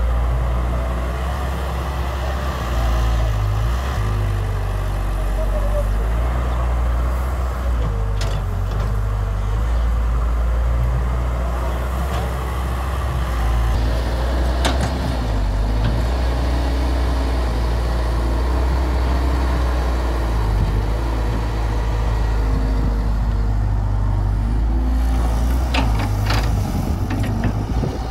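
Hyundai Robex 130W wheeled excavator's diesel engine running steadily under load while it digs and swings earth, with a few sharp clanks from the bucket and boom.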